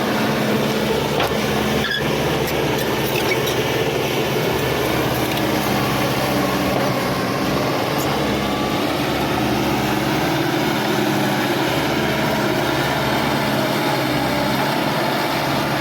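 Caterpillar D5K XL bulldozer's diesel engine running steadily under load, with a dense mechanical clatter over the engine note.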